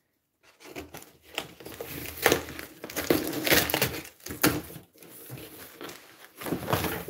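A cardboard shipping box being opened with scissors: the packing tape is cut and pulled away and the flaps are pried open. It comes as irregular bursts of scraping, crinkling and tearing, starting about half a second in.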